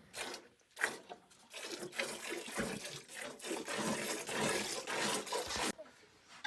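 Liquid running or pouring with a splashing hiss for about four seconds, cutting off suddenly near the end.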